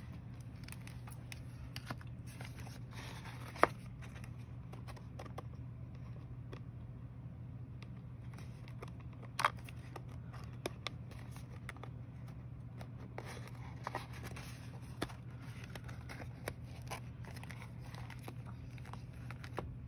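Hands handling a paper journal, its cover and packaging: scattered light taps, scrapes and crinkles, with a sharp click about three and a half seconds in and another about halfway through, over a low steady hum.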